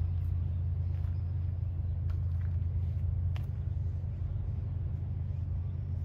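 Steady low rumble with a few faint clicks.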